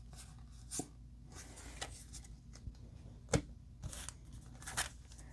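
Pokémon trading cards being handled: scattered soft rustles and taps, with one sharper click about three seconds in.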